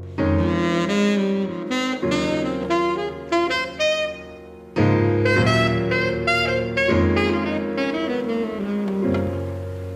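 Background jazz music: a saxophone playing a quick, busy melody over sustained low notes.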